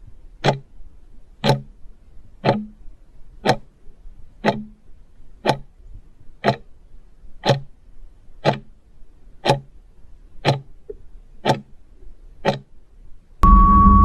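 Quiz countdown-clock sound effect ticking steadily once a second. Near the end a loud electronic sting with a steady tone cuts in.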